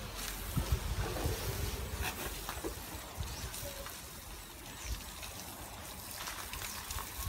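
Water from a garden hose spraying and splashing onto an elephant's hide, with scattered low thumps in the first few seconds.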